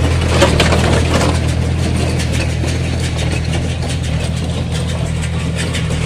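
Tractor engine running steadily while it tows a working small square baler, with short knocks and clicks from the machinery over the low engine hum.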